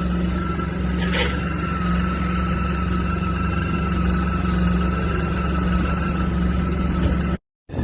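Suzuki Burgman 650 scooter's parallel-twin engine running steadily, with a thin steady whine above the engine note: the strange noise the owner likens to the drive belt rubbing. The sound cuts off abruptly shortly before the end.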